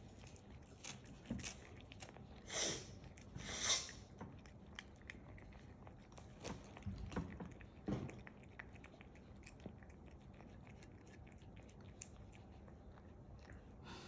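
A cat chewing and biting food: scattered small clicks and crunches, with two louder bursts about three and four seconds in.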